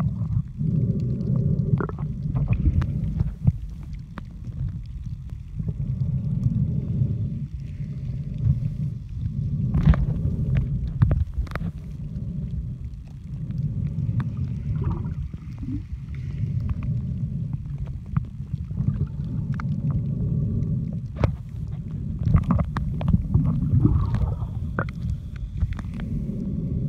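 Muffled underwater rumble of moving water picked up by a submerged camera, swelling and easing every few seconds, with scattered sharp clicks.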